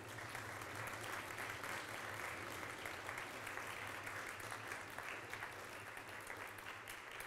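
An audience applauding: many hands clapping together in a steady patter that eases slightly near the end.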